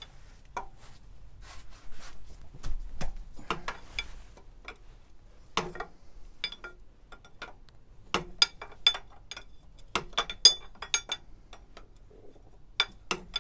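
A large 27 mm spanner clinking against the metal unions of the engine's oil cooler pipes as they are undone. Irregular metallic clicks and clinks, some ringing briefly, come most thickly in the second half.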